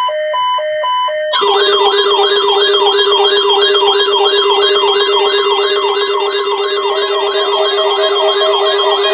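Weather alert radio alarms sounding for a tornado warning: alternating electronic beeps, then about a second and a half in a loud siren-like warble joins, sweeping up and down about two and a half times a second over a steady lower tone.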